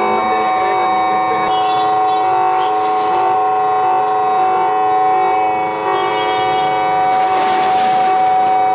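Bank's electronic alarm siren sounding continuously: a steady tone under a horn-like note that steps between pitches about every half second. The police suspect a short circuit set it off.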